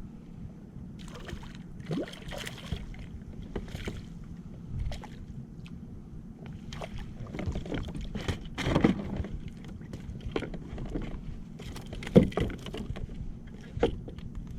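Water sloshing against a kayak hull under a steady low rumble, with scattered knocks and rattles, the loudest about twelve seconds in.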